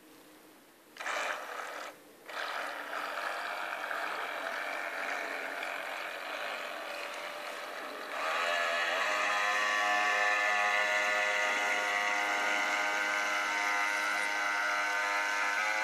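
Small motor of a radio-controlled model boat whining as the boat runs on the water, with a short break about two seconds in. About eight seconds in it steps up to a louder, steady high whine as the boat speeds up.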